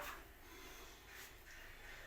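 Near silence: faint kitchen room tone.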